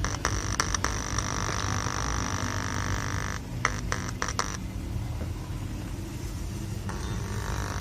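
Faulty Polytron active speaker playing weakly with a hoarse, rough, snoring-like distortion, mostly a low rumbling hum; the brighter part of the sound drops away about halfway through. The fault is a shorted D41 output transistor.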